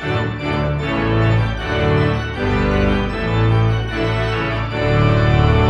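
Music: sustained organ chords with a strong bass, changing every second or so.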